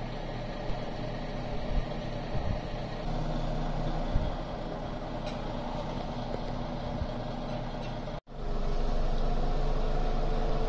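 Diesel engine of a DAF crane lorry running steadily, powering its lorry-mounted crane, with a few light knocks. After a sudden break about eight seconds in it runs louder, with a steady higher whine.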